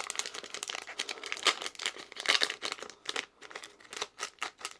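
Foil Pokémon booster pack wrapper crinkling in the hands and being torn open, a dense run of irregular crackles and rips.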